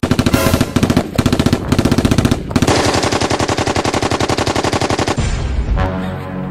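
Automatic gunfire, likely a machine-gun sound effect: rapid shots in short bursts, then one long unbroken burst of about two and a half seconds that stops about five seconds in.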